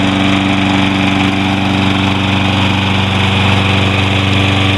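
Toro Recycler walk-behind mower's Kohler 149cc engine running steadily at a constant speed.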